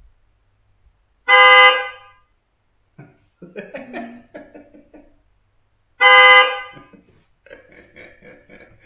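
Electric unicycle's horn sounding from its built-in speaker, set off from the phone app: two short honks about five seconds apart, each starting sharply and fading.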